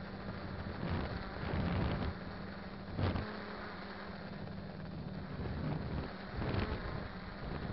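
Quadcopter's four 2212 1000KV brushless motors and propellers humming steadily, recorded by the drone's onboard camera, with a few gusts of wind buffeting the microphone about a second in, at three seconds, and near the end.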